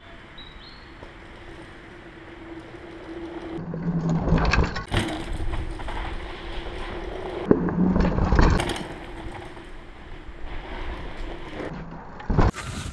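Mountain bikes coming down a dirt trail, tyres rolling and scrabbling over dirt and stones. The noise surges twice, a few seconds in and again about halfway, and there is a sharp loud hit as a rider passes close near the end.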